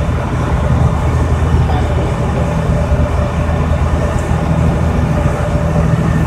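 Steady low drone of a canal boat's engine running under way, with water rushing past the hull.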